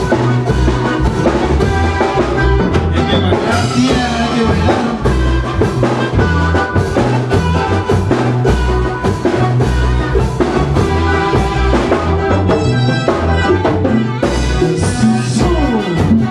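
A band playing a chilena mixteca, a dance tune with a drum kit keeping a steady beat under bass and other instruments.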